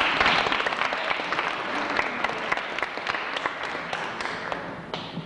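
Audience applauding, the clapping loudest at first and then thinning out and fading near the end.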